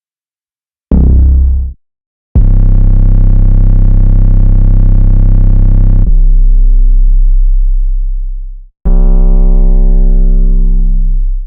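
Deep synthesizer bass notes from a producer's sample pack, played one at a time with short silences between: a brief hit, then a long held note that fades out, then another long note.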